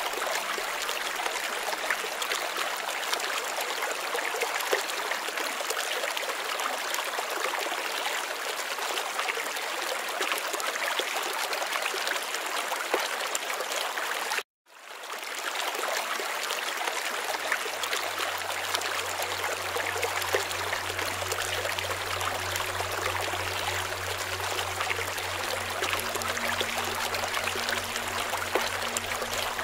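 Steady running water like a stream, an even rushing trickle. It cuts out for an instant about halfway through and starts again. A low steady hum joins it in the second half.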